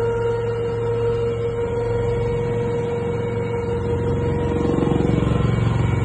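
Westland Lynx Mk7 helicopter in flight, heard from inside the cockpit: a steady high whine from the turbines and gearbox over a low rotor drone. About two-thirds of the way through, the sound grows a little louder with a rapid pulsing.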